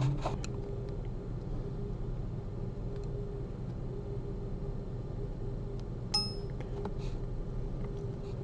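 Low steady hum with faint background noise, broken about six seconds in by one short ringing metallic clink of steel surgical instruments (forceps and needle holder) touching.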